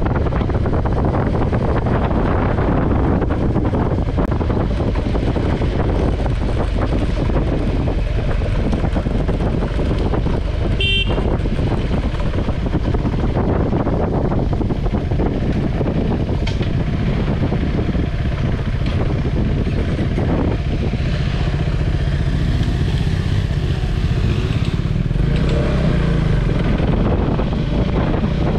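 KTM 390 Adventure's single-cylinder engine running as the motorcycle rides along, with heavy wind noise on the microphone. A short horn toot sounds about eleven seconds in.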